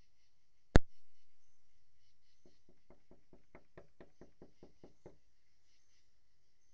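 One sharp, loud knock about a second in, then a quick run of about a dozen faint, evenly spaced knocks, roughly four a second, that stop about five seconds in.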